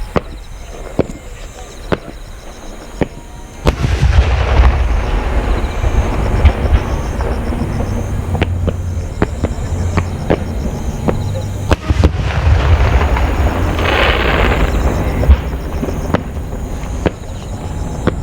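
Aerial fireworks shells bursting. A few sharp bangs about a second apart come first; then, about four seconds in, a dense barrage of bursts with a low rumble and crackling sets in, and a loud crackle comes a little past the middle.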